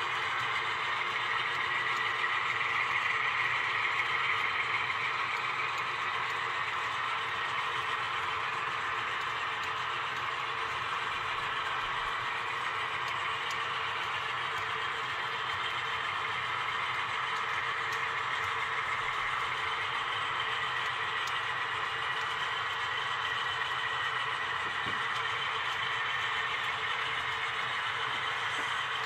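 HO-scale model coal train rolling past, a steady run of loaded hopper cars with metal wheels on the rails.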